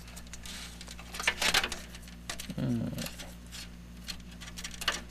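Hands working cables and pushing plastic 4-pin Molex power connectors together inside a desktop PC case: scattered clicks and rustles, the loudest rustle about a second and a half in, over a steady low hum.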